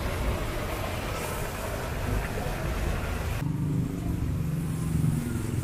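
Street traffic with a motor vehicle engine running close by. A broad hiss fills the first half; a little over halfway through the hiss drops away abruptly, leaving a steady low engine hum.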